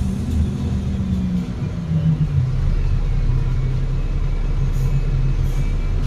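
Cummins L9 straight-six diesel engine and Voith automatic gearbox of an Enviro500 MMC double-decker bus, heard from the rear seats inside the bus. The engine note falls over the first couple of seconds as the bus comes off power to slow for a stop, then runs steadily at a lower pitch.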